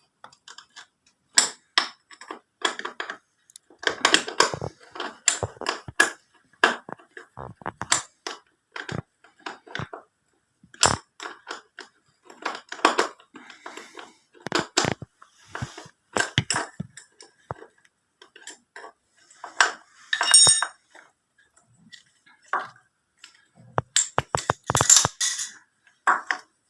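Metal clinks, clicks and knocks in irregular clusters as a spanner loosens bolts and the rectifier regulator of a Suzuki GS150 motorcycle is worked free; one short metallic ring about twenty seconds in.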